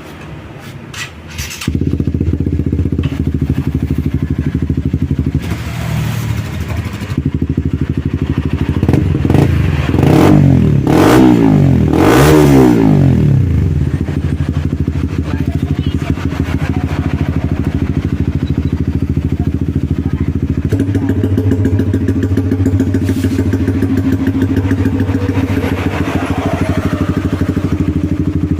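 Honda CBR150R's single-cylinder engine running through an aftermarket Akrapovic-style racing exhaust. After a few clicks it comes in at a loud idle about two seconds in, is revved up and down several times around the middle, then settles back to a steady idle.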